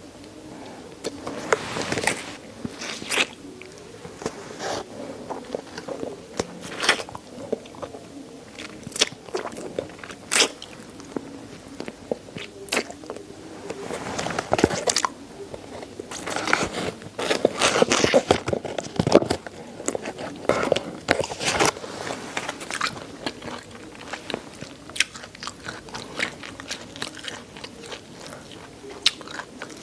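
Close-up chewing and biting on chicken neck: bones and cartilage crunching and cracking in sharp, irregular snaps, with wet mouth sounds between them. The crunching comes thickest in two bouts about halfway through.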